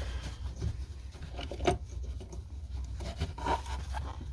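Plastic fuel pump assembly parts and fuel lines being handled: light rubbing and scraping with a few small knocks, the sharpest about halfway through, over a steady low hum.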